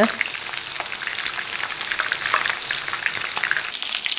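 Marinated chicken pieces coated in cornflour and rice flour deep-frying in hot rice bran oil: a steady bubbling, crackling sizzle.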